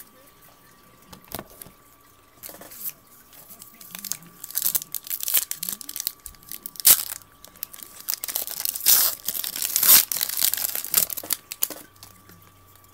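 Wrapper of a 2011-12 NBA Hoops basketball card pack being torn open and crinkled. A run of sharp crackles and rips starts a couple of seconds in and lasts several seconds.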